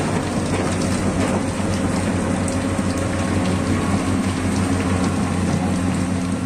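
Komatsu PC200 hydraulic excavator's diesel engine running steadily as the machine works in the mud, a constant low drone with a broad hiss over it.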